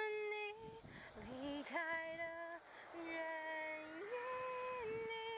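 A woman singing a slow song, holding long notes one after another with small slides between them.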